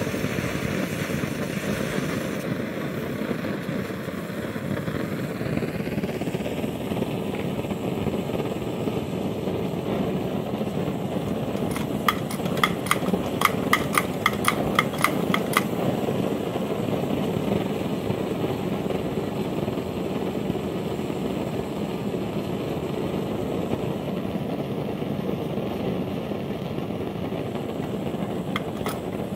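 Restored No 42 one-pint Companion brass kerosene blow torch burning, its pressurised burner giving a steady rushing noise. About twelve seconds in comes a quick, even run of about a dozen clicks, roughly three a second, as a gloved hand works the torch at its pump.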